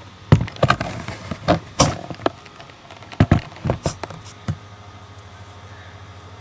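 Clicks, knocks and short swishes as the 1964 Cooper Cyclo-Vac's 3.5-horsepower vertical-pull-start engine is pulled over, then the engine catches about three-quarters of the way in and runs steadily.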